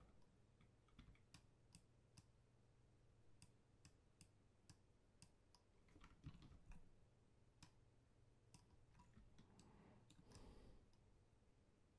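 Faint computer mouse clicks at an irregular pace, sometimes a few in quick succession, over near silence with a faint low hum.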